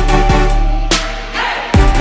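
Background electronic music with a steady beat of deep bass-drum hits. About a second in, the beat drops out under a rising hiss, then comes back with a loud hit near the end.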